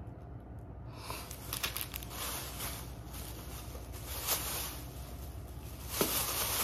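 Thin plastic shopping bag rustling and crinkling as hands rummage through it, starting about a second in, with a few sharper crackles.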